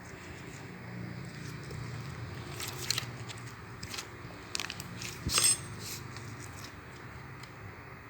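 Slime being handled by hand, giving a few sharp clicks and crackles, the loudest about five seconds in, over a low steady hum.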